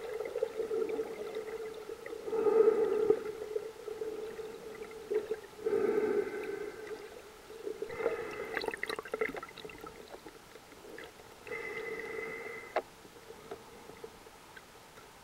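A snorkeler's breathing through a snorkel heard with an underwater camera: about five breaths, one roughly every three seconds, each with a steady humming tone. Gurgling water and a few sharp clicks come between the breaths.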